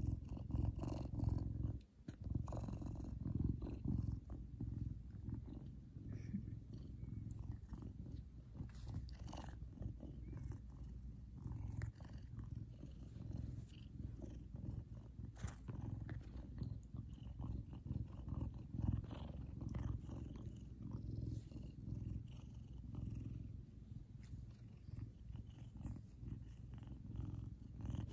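Savannah cat purring steadily right at the microphone, a continuous low rumble that breaks off briefly about two seconds in.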